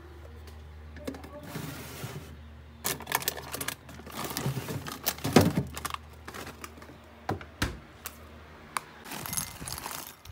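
Refrigerator humming with its door open while things are moved about inside: clicks and knocks against shelves and bottles and the crinkle of a plastic snack bag. The hum stops about three quarters of the way through, and near the end bread crisps rattle out of the plastic bag onto a ceramic plate.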